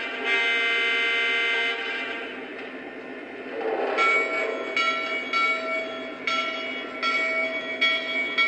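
O gauge model diesel locomotive's onboard sound system: a multi-note horn blast that stops about two seconds in, then after a short lull the locomotive bell ringing with strokes about three-quarters of a second apart.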